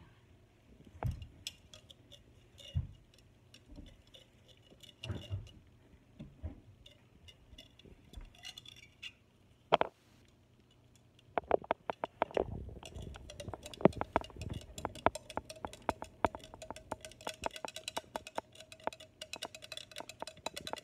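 A spoon clinking and knocking against the inside of a clear plastic tumbler while water and activator powder are stirred until the powder dissolves. Scattered knocks at first, then rapid, continuous clinking from about halfway.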